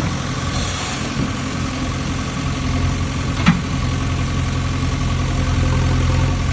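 A motor running at a steady, even hum, like an engine at idle, with one sharp click about three and a half seconds in.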